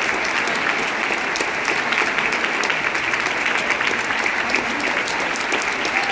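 Large theatre audience applauding, steady and unbroken: a dense wash of many hands clapping.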